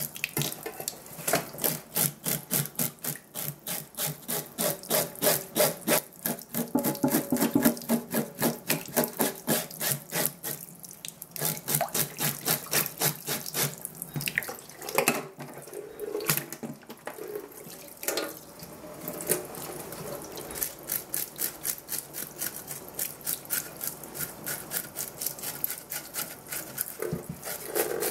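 A fish being scrubbed and scraped by hand in a stainless steel sink: fast, regular scraping strokes, several a second, with a few short pauses, over tap water running into the sink.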